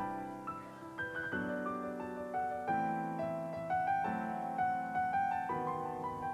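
Background piano music: a gentle melody of struck notes over chords that change every second or so.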